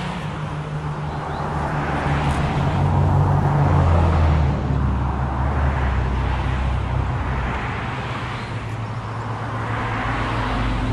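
Road traffic: cars passing, their noise swelling and fading a few times over a steady low engine hum.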